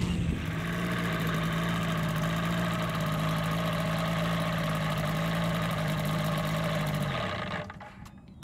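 RevX weight-shift trike's engine idling steadily with its propeller turning, then shut off about seven seconds in, dying away to quiet.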